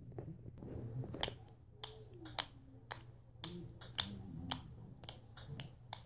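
Fingers snapping in a quick, uneven run of about fifteen sharp snaps, over a faint steady low hum.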